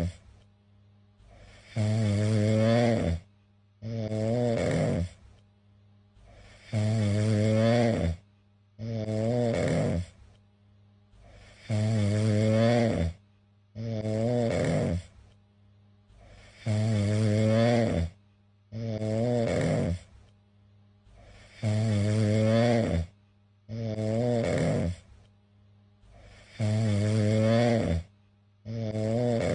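Domestic cat snoring steadily and rhythmically. The snores come in pairs about every five seconds, each a second or so long with a wavering, buzzy pitch.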